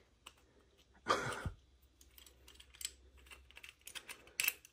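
Small faucet parts being handled in a foam-lined cardboard box: a brief louder handling noise about a second in, then light, irregular clicks and taps of metal and plastic pieces, a little busier near the end.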